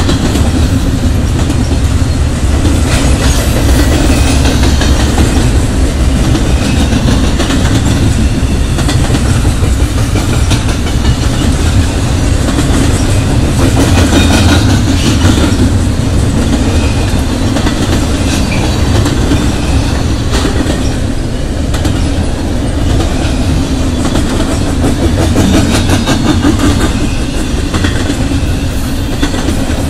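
Loud, steady rumble of a double-stack intermodal freight train's loaded well cars rolling past, with wheels clacking over rail joints.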